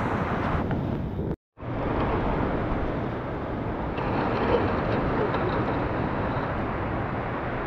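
Steady rushing of a fast river running over whitewater rapids. It cuts out for an instant about a second and a half in.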